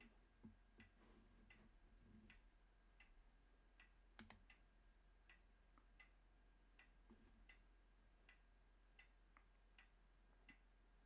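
Near silence: a wall clock ticking faintly and evenly, about four ticks every three seconds, over a low electrical hum, with one sharper click about four seconds in.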